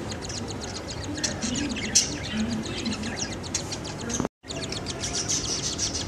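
Cockatiels chirping in a rapid, steady run of high chirps, with a brief dropout just past four seconds.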